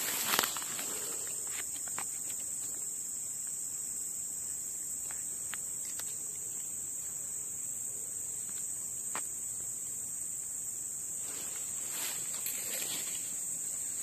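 Insects droning steadily at a high pitch, with a sharp tick about half a second in and a few faint ticks later.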